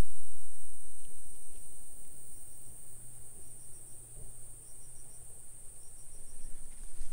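Jungle insects, cicada or cricket type, keeping up one steady high-pitched buzz, with faint short chirps in groups of three or four about every second, over a low rumble that fades over the first few seconds.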